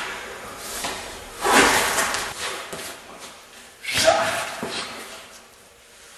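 Two sharp hits from a staged fight, one about a second and a half in and a louder one about four seconds in, each echoing briefly off the concrete car park.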